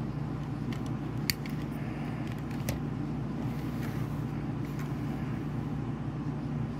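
Steady low hum of background noise, with a few faint clicks.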